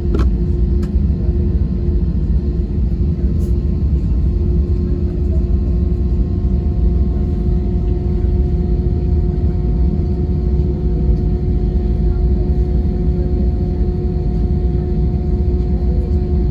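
Steady low rumble of an Airbus A320's jet engines heard inside the passenger cabin, with a constant hum that holds one pitch and a couple of faint clicks about a second in.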